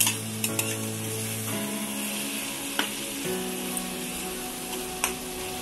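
Chopped onions and tomatoes sizzling in hot oil in a kadai as they are stirred, with a few sharp clicks of the spatula against the pan. Background music with held notes plays underneath.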